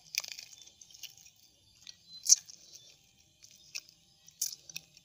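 Close-miked eating sounds: chewing, and chopsticks and fingers picking apart boiled suckermouth armored catfish, heard as scattered sharp clicks and crackles. The loudest crack comes a little past two seconds in.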